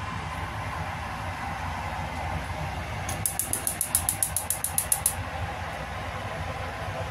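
Steady low kitchen hum, with a quick run of about sixteen sharp, high-pitched ticks, evenly spaced, starting about three seconds in and lasting about two seconds.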